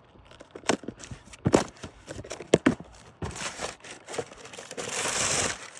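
A package being opened by hand: a few sharp knocks and clicks, then two stretches of packaging tearing and crinkling.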